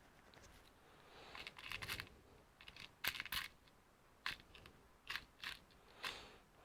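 Faint, irregular clicks and scrapes of a small screw and screwdriver being worked into the plastic screw holder of a laptop's DC jack, to secure the loose jack.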